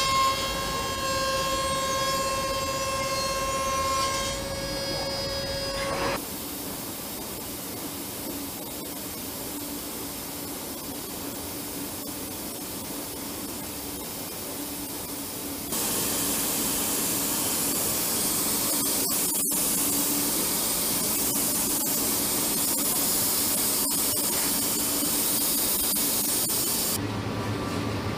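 Factory machine noise. A CNC milling machine cutting aluminium gives a steady whine at several pitches for about six seconds. Then comes a quieter steady machine noise, and from about sixteen seconds a louder steady hiss over a low hum.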